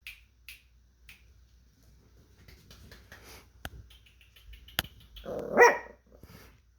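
West Highland white terrier puppies playing: light clicks and scuffling, then one loud puppy bark about five and a half seconds in.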